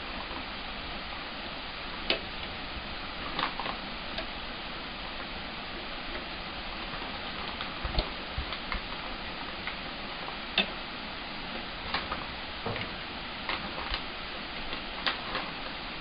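Light, irregular metallic clicks from the handle of a floor jack being turned by hand, over a steady background hiss.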